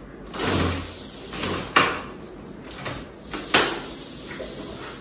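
A hand tool scraping on a wall in about five short strokes, two of them sharper and louder, during a small wall repair that is to be patched with cement plaster.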